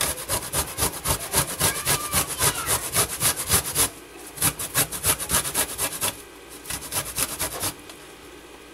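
Fresh ginger root grated on a stainless steel box grater: quick rasping strokes, about five a second, with a short break about four seconds in. The strokes then turn softer and stop near the end.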